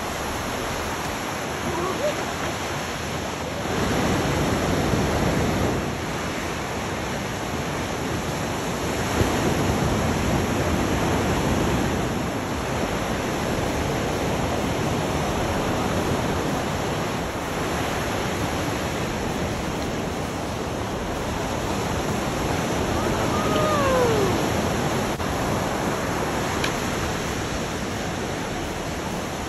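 Ocean surf: waves breaking and washing up the beach, a continuous rush that swells louder a few times.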